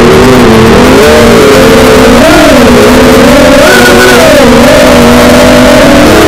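FPV quadcopter's brushless motors and propellers on a 4S battery whining, heard onboard. Several close pitches rise and fall together as the throttle changes, loud throughout.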